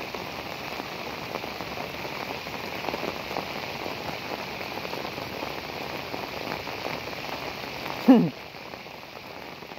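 Heavy rain falling steadily onto flooded paddy fields. About eight seconds in there is one short, loud call that falls in pitch.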